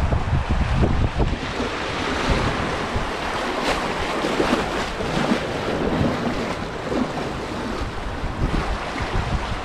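Water rushing steadily along the concrete channel of a river rapids ride, heard from the round raft, with wind rumbling on the microphone until about a second in.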